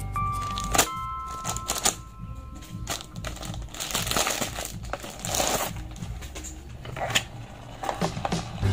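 Toy packaging being opened by hand: plastic and cardboard crinkling and rustling with a string of sharp clicks and knocks, over faint background music.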